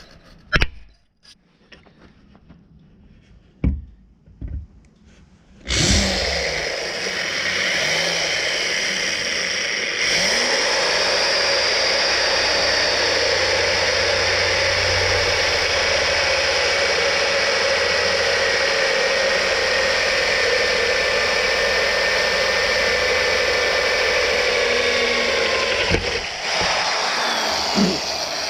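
A power drill boring holes in the side of a sprayer boom, running steadily for about twenty seconds before stopping near the end, after a few quiet knocks and clicks.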